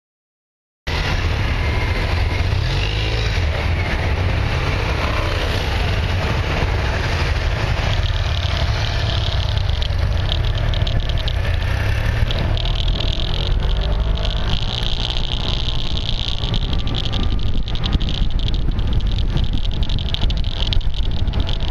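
Wind rumbling over a motorcycle-mounted action camera's microphone as the bike rides along, with a fast clicking from tape stuck over the microphone. The sound cuts in abruptly just under a second in, and the clicking and a hiss grow stronger about halfway through.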